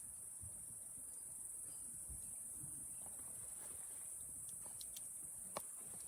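Campfire embers ticking and popping faintly, with one sharper pop about five and a half seconds in, over a steady high-pitched chirring of crickets.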